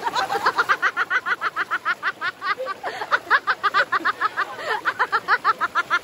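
A person giggling in a long run of quick, high-pitched, even pulses, about six or seven a second, with a short catch of breath just before the halfway point.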